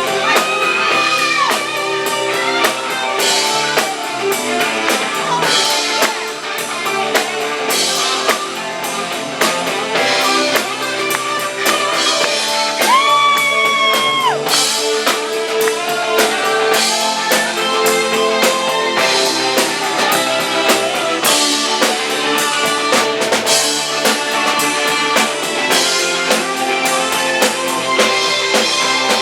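Rock band playing, electric guitar over a drum kit, with no singing. A high held note slides up and sustains about halfway through.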